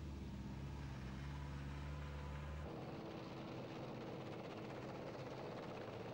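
Armoured military vehicles driving past with engines running: a steady low drone that changes abruptly about two and a half seconds in to a higher steady tone with more hiss.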